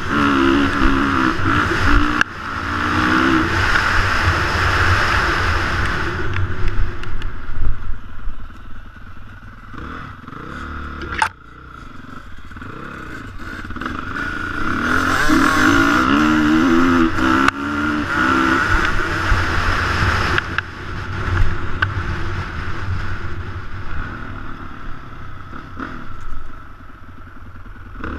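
Dirt bike engine revving hard through two full-throttle runs, its pitch climbing and dropping as the gears go up, with wind rushing over the microphone; it eases off between the runs and again near the end. A single sharp knock sounds about eleven seconds in.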